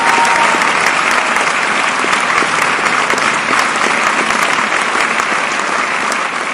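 Crowd applauding: dense, steady clapping that begins to fade out near the end.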